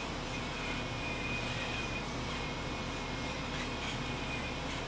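A 1/14-scale RC hydraulic excavator's hydraulic pump running steadily with a thin high whine as the machine swings and lifts its boom and bucket.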